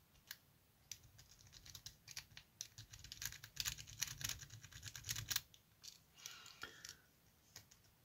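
A worm rake scrubbed quickly in and out of a six-pin brass euro cylinder lock, a rapid run of faint metallic clicks and scratches as it bounces the pins, raking to get the pins moving. It goes on for about five seconds, then only a few scattered ticks.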